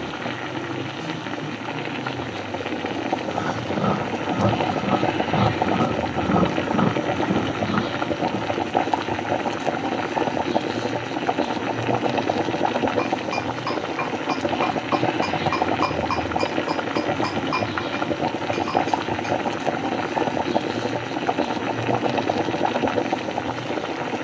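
Steady bubbling, crackling noise, like something boiling or sizzling, with a run of faint high pips about halfway through.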